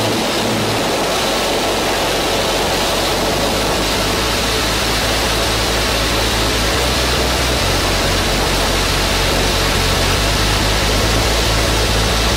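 Steady, loud rush of wind buffeting a camera microphone in skydiving freefall.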